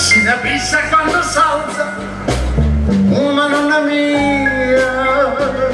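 A live band playing a song: a male voice singing over keyboards, bass and drums, with one long held note in the middle.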